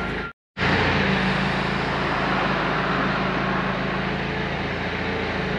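Forklift engine running steadily while it lifts and carries a ripper mount, after a brief dropout in the sound just after the start.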